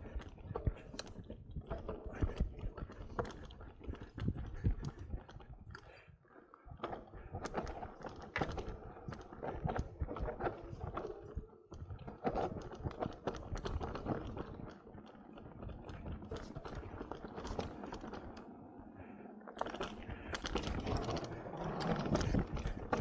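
Mountain bike riding fast down a rough dirt forest trail: a dense, irregular clatter of tyres crunching over dirt, roots and stones and the bike rattling and knocking over the bumps, easing briefly a couple of times.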